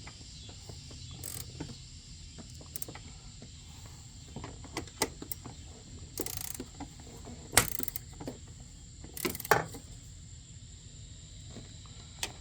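Hand socket ratchet clicking in short spells as door hinge bolts are tightened down, with a few sharper knocks in between.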